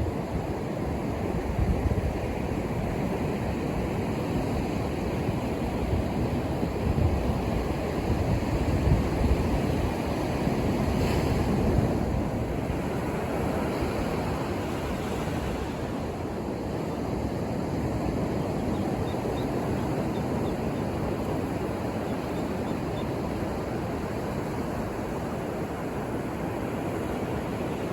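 Atlantic surf breaking and washing up the beach: a continuous rush of waves that swells a little louder around the middle.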